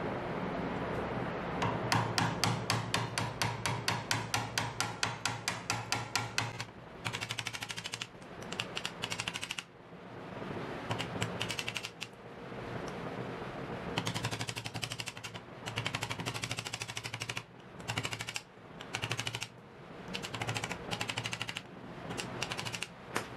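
Wood chisel scraping along the edge of a plywood block held in a bench vise, making rapid rattling ticks: first a steady run of about five ticks a second, then a string of short strokes of dense ticking with pauses between. A steady low hum runs underneath.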